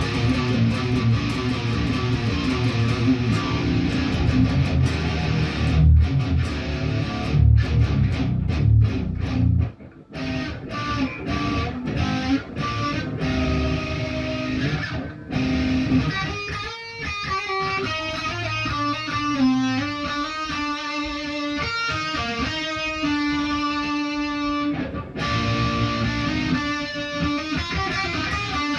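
Guitar being practised: dense, heavy chords or riffing for about ten seconds, a brief break, then a run of separate single notes picked one after another.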